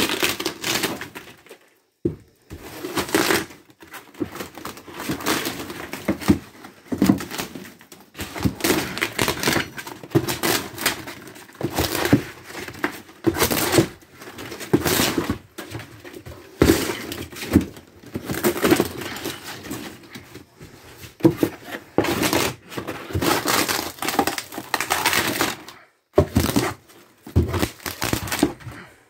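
Thin wood wall paneling of a camper being pried and torn off the framing: irregular splintering cracks, tearing and knocks, with brief pauses between pulls.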